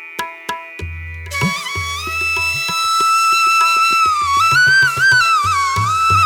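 Background music: short plucked notes over deep bass notes, then a held, bending melody line comes in about a second in.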